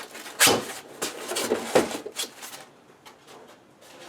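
Unpacking noises: two knocks as items are set down or handled, with rustling of packaging between them, then a few faint taps.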